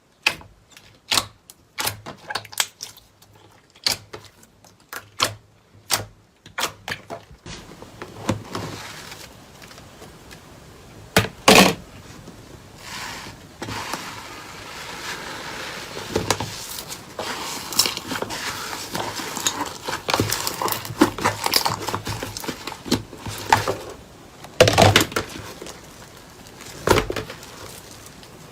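Slime being squished and poked by hand: a run of sharp wet clicks and pops, turning about eight seconds in into continuous crackling with louder pops now and then.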